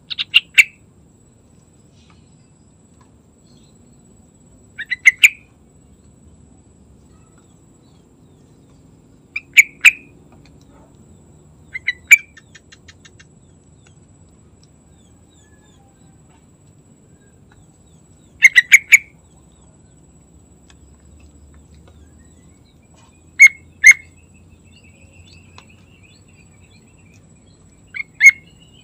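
Yellow-vented bulbul (trucukan) calling. It gives short phrases of two to four quick, sharp notes, repeated every few seconds, seven phrases in all.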